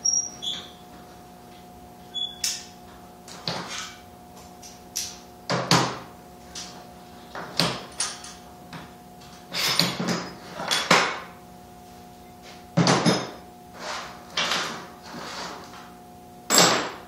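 MIG welder laying short tack welds on a steel frame: a string of brief bursts, roughly one every second or so, over a steady hum.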